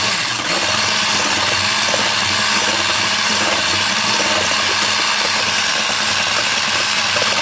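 Handheld electric mixer running steadily with an even motor hum, its beaters whisking eggs and sugar in a plastic bowl to beat them into a foam.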